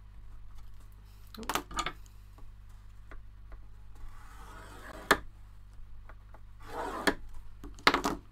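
Kraft paper being scored on a scoreboard: a plastic scoring tool scraped along the groove in a few short strokes, with a sharp click partway through. Near the end the sheet is handled and shifted with a rustle and a tap.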